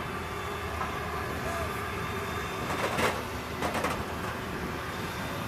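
Steady jet aircraft noise heard inside a B-52 cockpit, with a few sharp clicks and crackles about three and four seconds in.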